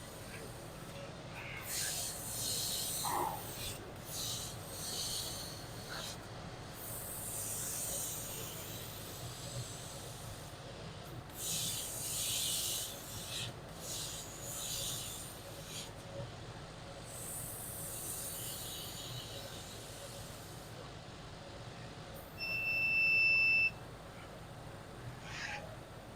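Laser webbing cutting and hole-punching machine at work: bursts of hissing a second or two long, several times over, above a low steady hum, and a single electronic beep near the end.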